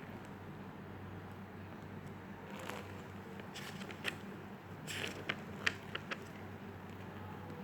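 A fidget spinner being handled: a scattering of light, sharp clicks and taps over a steady low hum. The clicks come in the middle few seconds.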